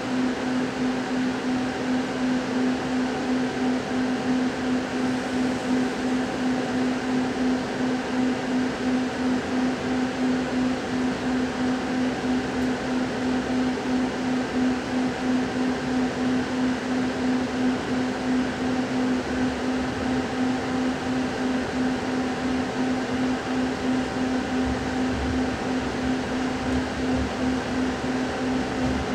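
Steady pulsing hum inside a passenger train carriage as it pulls slowly away from a station. Low rumble from the running gear comes in near the end.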